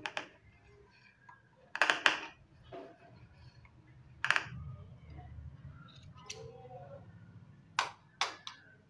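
Large tailor's scissors cutting through fabric with a string of short, sharp snips. There is a quick cluster of a few about two seconds in, then single snips spaced out, and two close together near the end.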